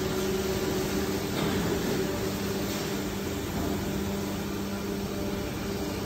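Steady hum of running factory machinery: a low, even drone over a hiss that holds without change.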